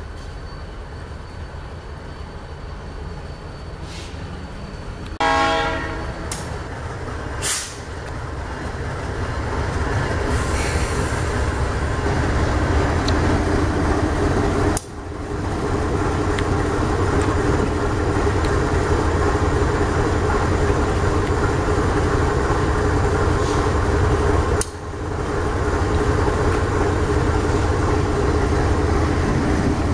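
Diesel freight locomotive sounding its horn once, for about a second, about five seconds in, followed by the steady rumble of its diesel engine and rolling train growing louder as it approaches and passes.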